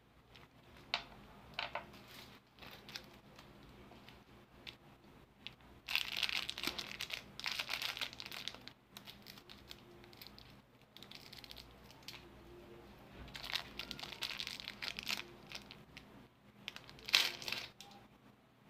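Clear plastic lollipop wrapper crinkling as it is twisted and pulled off the candy, in several bursts, the loudest near the end.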